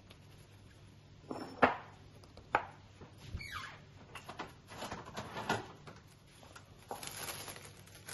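Bowl of dough being handled and covered with cling film: two sharp knocks about a second apart, a short falling squeak, then a run of crinkly rustling.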